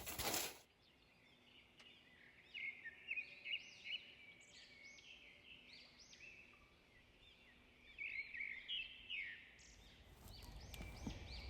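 Small songbirds chirping in two short bouts of quick, high calls, with a brief noise at the very start.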